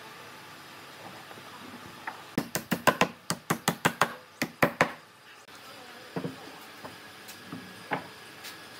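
A hammer drives glued wooden dowels into a wooden frame joint: a quick run of about a dozen sharp blows over two and a half seconds, with a brief pause partway through. A few scattered wooden knocks follow later.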